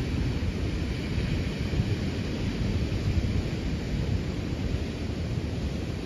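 Wind buffeting the microphone in a steady low rumble, over the hiss of ocean surf breaking on the shore.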